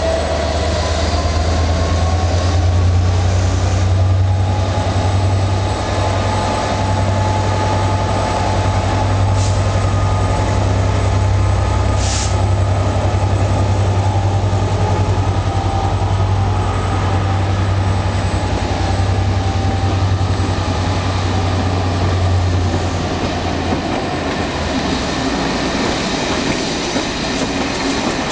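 Class 67 diesel locomotive pulling away with a train of coaches: its EMD two-stroke V12 runs with a steady low drone that fades after about 23 seconds. The coaches roll past with a thin squeal from the wheels.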